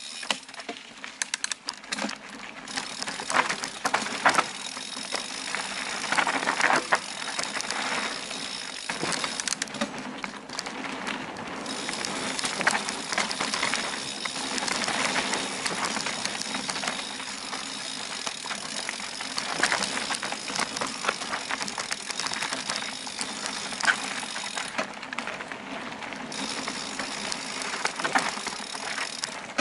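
Mountain bike ridden fast over a dirt forest trail: steady tyre and rolling noise with the bike rattling and clicking over roots and bumps.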